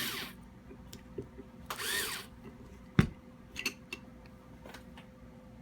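Electric drill with automatic torque shut-off driving a screw in two short bursts, one at the very start and one about two seconds in, its motor whining up and back down as it cuts off at the set torque. A sharp click comes about three seconds in, followed by a few lighter clicks.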